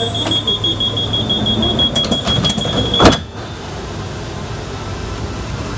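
Suburban electric train's door-closing warning: a rapid high-pitched beeping for about three seconds, cut off by one loud thud as the doors shut, over the steady hum of the train.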